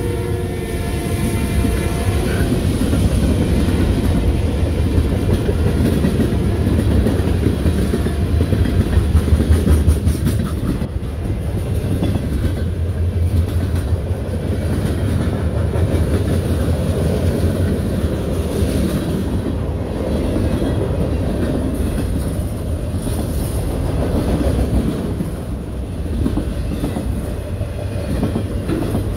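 A freight train's cars rolling past close by: a steady, loud rumble of steel wheels on rail with repeated clacks as the wheels cross the rail joints.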